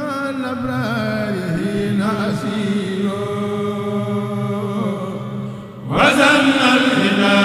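Chanted vocal music: a voice holding long, wavering notes over a steady drone. About six seconds in it dips briefly, then comes back suddenly louder and fuller.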